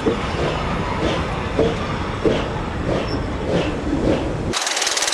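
Rusty 15F steam locomotive and tender rolling slowly on the rails, a steady rumble with a regular clank from the wheels and rods about every half second. Near the end a burst of steam hiss sets in.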